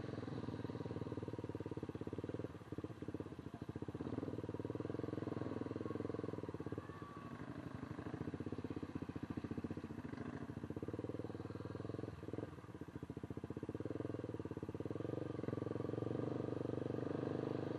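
Motorcycle engine running steadily, a continuous pulsing drone with slight dips in level now and then.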